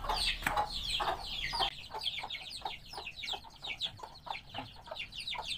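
Chicks peeping in a rapid run of short, high, falling chirps, several a second, with a mother hen clucking, as they crowd to a bowl of feed.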